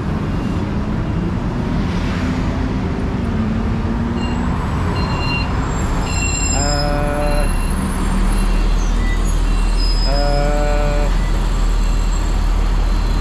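City street traffic: engines and tyres of passing buses and cars, a heavy vehicle growing louder about two-thirds of the way in. Two matching pitched tones, each about a second long, sound a few seconds apart.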